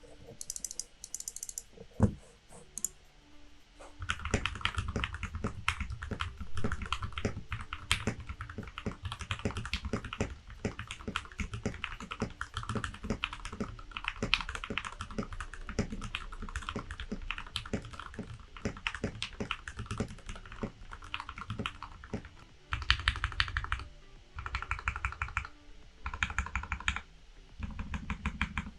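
Typing on a custom 60% mechanical keyboard in a wooden case, with lubed Gateron Milky Yellow linear switches and PBT keycaps. A few scattered keystrokes come first, then continuous fast typing from about four seconds in, with several short, dense flurries of keypresses near the end.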